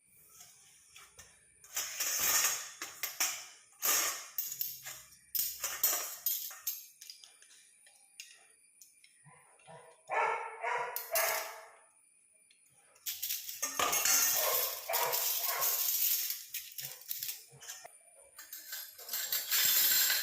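Irregular bursts of running water and scrubbing as dishes are washed at a sink. About ten seconds in, a dog barks several times in quick succession.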